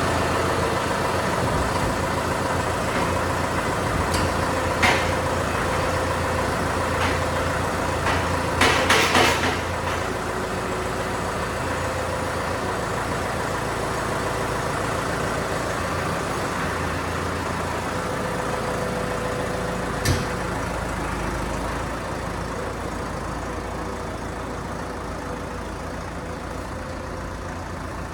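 Engine idling steadily just after being started, with a few sharp metallic knocks about five seconds in and again around nine seconds, and a single click near twenty seconds.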